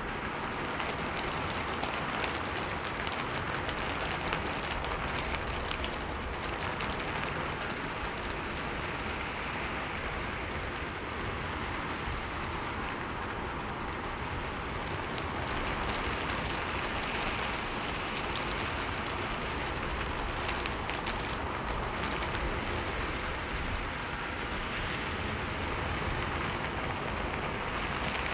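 Rain falling steadily on a roof: a dense, even hiss with scattered sharper drop ticks.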